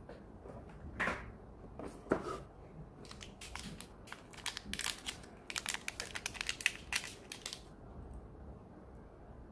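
Plastic packaging crinkling and crackling as it is handled, a couple of soft rustles first and then a dense run of quick crackles from about three seconds in to near the end.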